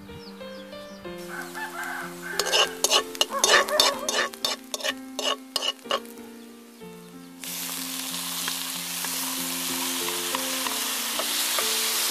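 Metal spoon scraping and clanking against an aluminium pan while onions are stirred, a burst of rapid strokes; then from about seven seconds in a steady sizzle as chopped tomatoes fry in the hot pan. Soft background music underneath.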